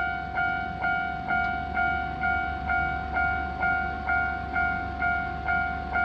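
Japanese railway level crossing's electronic warning bell ringing steadily, a two-pitched ding struck a little over twice a second, each ding fading before the next.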